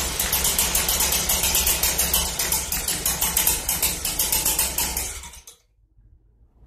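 The two-stroke engine of a Stihl BG 65 leaf blower, fitted with a replacement carburetor, running with a steady throb. About five seconds in it stops, winding down over half a second.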